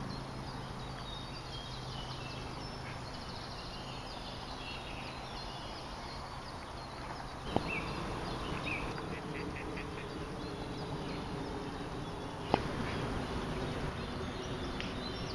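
Early-morning outdoor ambience: small birds chirping and calling over a steady background hiss, with a faint low hum in the first few seconds. Two sharp clicks come about seven and a half and twelve and a half seconds in.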